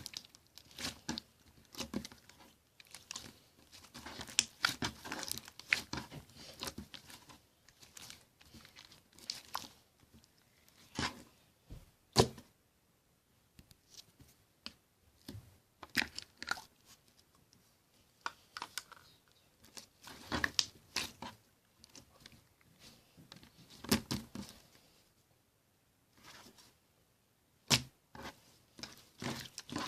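Slime being squeezed, stretched and folded by hand: irregular runs of small crackles and wet pops, with short pauses between handfuls.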